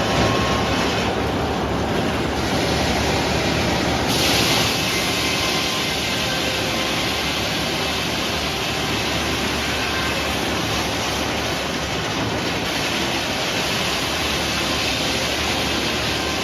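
Sawmill running and cutting a red oak log, a steady mechanical noise. A brighter, higher hiss comes in about four seconds in and holds.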